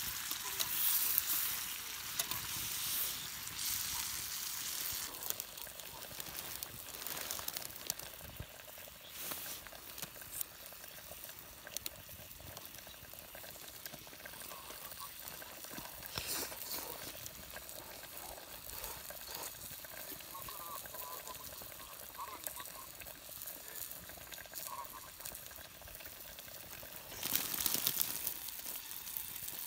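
Food sizzling and crackling as it fries over a campfire: a steady hiss with scattered pops, louder at the start and again briefly near the end.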